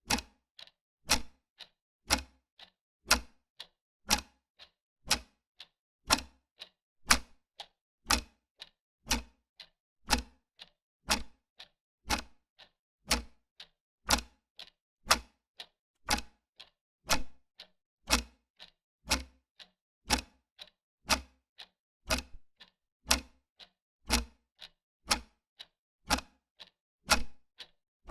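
Old mechanical clock ticking steadily, about two ticks a second in a tick-tock pattern that alternates a louder and a softer beat.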